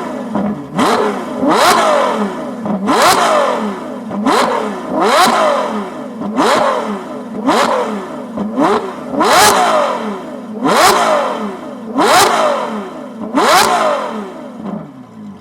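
Ferrari F12's V12 engine, straight-piped, blipped again and again from idle: about a dozen sharp rising revs, one every second or so, each snapping off with a loud crack from the open exhaust, to try to make it spit flames. It stops just before the end.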